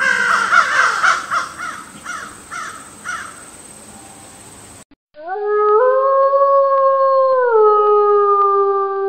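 End-card sound effect made of howl-like animal calls: first a run of short swooping yelps, about two a second, fading away, then after a brief break one long howl-like tone that steps up in pitch and later back down.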